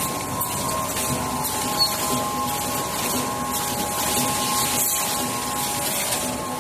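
Steady machine hum of an automatic servo-driven tube screen printing machine and the factory machinery around it, with several steady tones held throughout and a few faint ticks.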